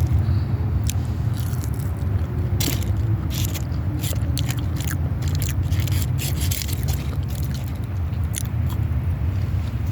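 Close-up chewing and biting of fast food, with many short crisp clicks, over a steady low hum.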